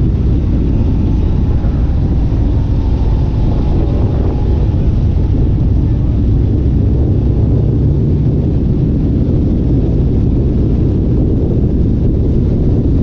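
A vehicle engine running loud and steady, a deep continuous rumble.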